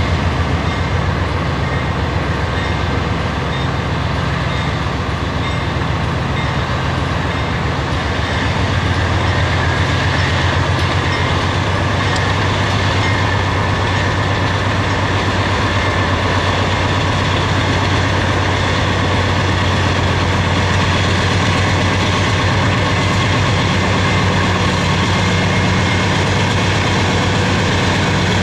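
An engine idling steadily with a low hum, its pitch shifting slightly about eight seconds in and again near the end.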